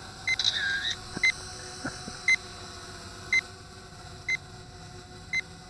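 Short high beep repeating about once a second: the selfie drone's headless-mode warning beep. About half a second in, a louder camera-shutter sound as a photo is taken through the phone app.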